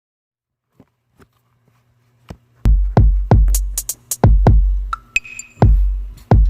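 Electronic background music with a drum-machine beat: near silence at first, then heavy bass-drum kicks and sharp hi-hat ticks come in about two and a half seconds in.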